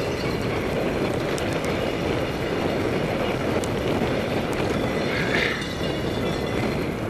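Cyclocross bike ridden fast over a bumpy dirt trail strewn with dry leaves: a steady rumble of knobby tyres on dirt and leaves, with the clatter of the jolting bike shaking the mounted camera.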